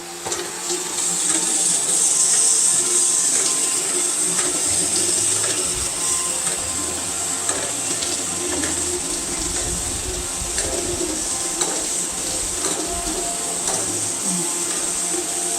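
iRobot Roomba i7 robot vacuum running with its side brush removed: a steady motor hiss and whir with a low rumble from the back, which the owner says has grown too loud, and scattered clicks as it travels over tile.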